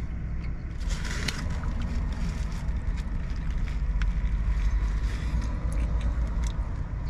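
A person biting into and chewing a large foil-wrapped burrito, the foil wrapper crinkling in scattered small crackles, over a steady low rumble.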